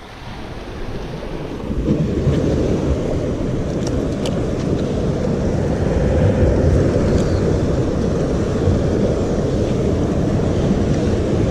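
Wind buffeting the microphone over the rush of surf breaking on rocks: a dense, steady low rumble that builds over the first couple of seconds, with a couple of faint clicks about four seconds in.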